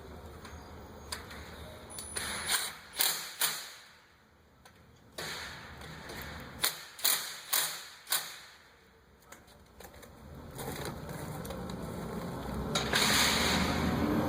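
Irregular sharp metallic clicks and knocks from the wrought iron gate's hardware being worked after a hinge shim is fitted, in two short clusters. A steady rushing background noise builds near the end.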